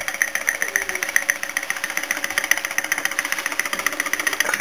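Small homemade laminar-flow Stirling engine running on an alcohol burner flame, its piston, crank and flywheel making a fast, even ticking clatter that turns a small homemade generator.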